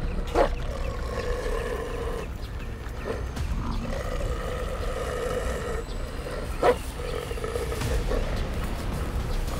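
Wild animal roars: three long, drawn-out calls of about two seconds each. The first and last each begin with a sharp knock.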